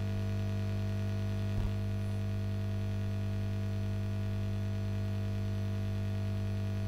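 Steady electrical mains hum with a stack of even overtones, with one faint click about a second and a half in.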